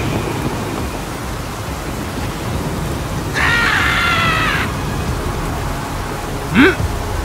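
Cartoon sound effects: a steady rushing noise, with a high, screeching creature cry about three seconds in lasting just over a second, and a short rising squeak near the end.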